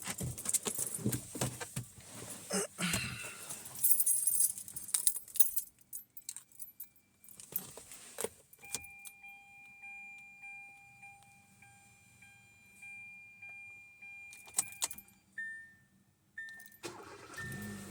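Car keys jangling and clicking for the first several seconds, then a steady electronic tone from the 2017 Hyundai Accent held for about six seconds. Near the end a short beep repeats, under a second apart.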